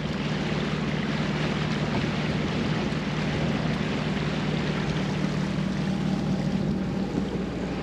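Inboard engine of a 1965 Alberg 30 sloop running steadily under way, a low drone with rushing water and wind over it; the drone eases off near the end.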